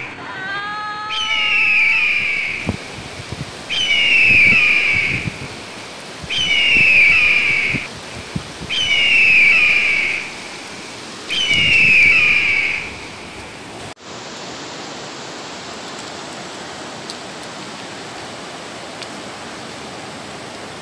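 A newborn baby crying in repeated falling wails, about one every two and a half seconds, with a woman's brief cry at the start; the wails stop about two-thirds of the way through. After that there is only the steady rush of a shallow river running over stones.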